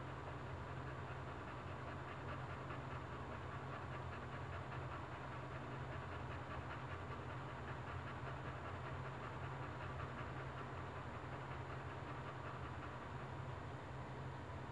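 Boxer bitch in labour, panting rapidly and steadily with her mouth open, over a steady low hum.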